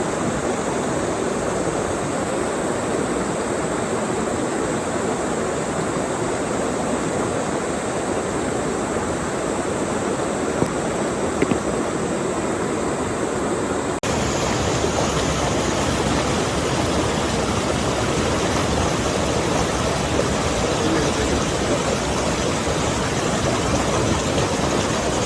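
Mountain valley stream rushing steadily over rocks. About fourteen seconds in it changes abruptly to a fuller, deeper rush of water.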